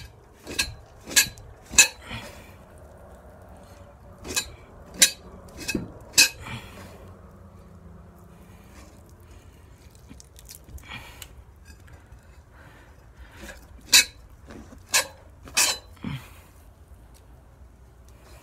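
A blade scraping fat off a beaver hide stretched over a fleshing beam, in short, sharp strokes. The strokes come in three groups of about five, with a long pause between the second and third groups.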